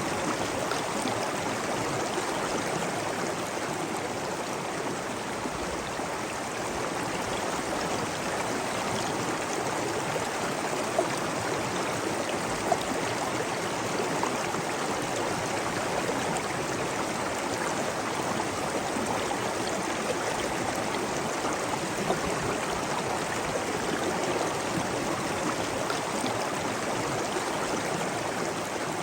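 Steady rushing and gurgling of flowing water, with a few faint drips or splashes.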